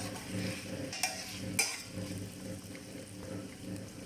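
Chicken pieces with potatoes and carrots sizzling in a frying pan while being stirred, with sharp scrapes or clinks of the utensil against the pan about one second and one and a half seconds in. A steady low hum runs underneath.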